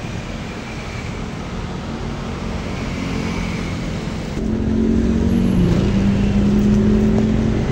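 Automatic scooter engine running under road noise, louder from about four and a half seconds in, where it settles into a steady hum as the scooter picks up speed.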